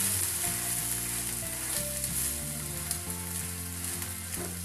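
Semolina cheela sizzling in oil on a hot nonstick tawa, its uncooked side just flipped down onto the pan. The sizzle is loudest at the start and eases a little.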